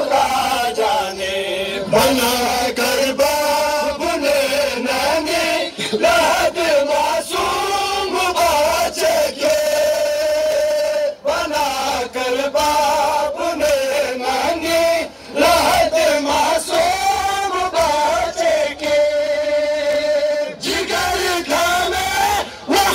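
A group of men chanting a noha, a Shia mourning lament, in long drawn-out sung lines, with frequent sharp beats running through it.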